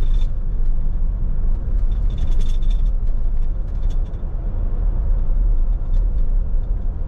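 In-cab road noise of a 2021 Jeep Wrangler Unlimited Rubicon with the 3.0-litre EcoDiesel V6 driving along: a steady low rumble of engine and tyres, with a few faint rattles about two seconds in.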